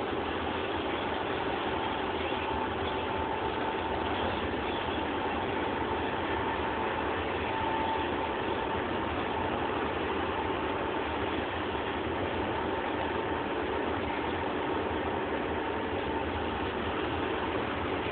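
Steady engine and road noise inside a van's cab cruising on a motorway, with a faint steady whine.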